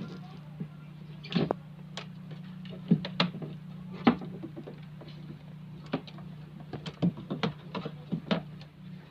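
Irregular sharp clicks and knocks from hands and tools working on a washing machine, over a steady low hum.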